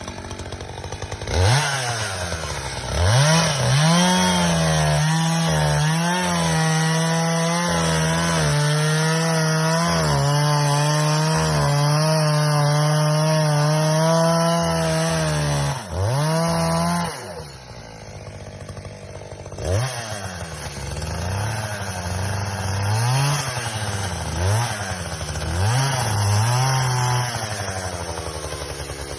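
Chainsaw revving up and running at full throttle for about twelve seconds, its pitch wavering as it cuts wood, then dropping to idle. Later several short revs rise and fall before it settles back to idle.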